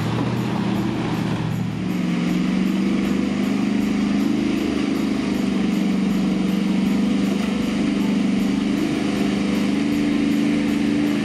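V8 engines of off-road vehicles running at crawling speed: first the Ford Raptor R's supercharged V8, then, after a cut about two seconds in, the Jeep Wrangler 392's 6.4-litre HEMI V8 with a steady low, slightly wavering note as it creeps through mud.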